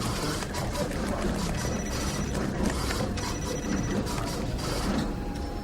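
Office ambience: a steady low room hum with mechanical clatter and many small clicks, and short faint high beeps coming and going. A steady tone starts about five seconds in.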